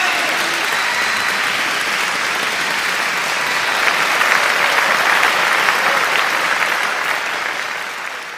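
Applause from a crowd, swelling a little about four seconds in and fading out near the end.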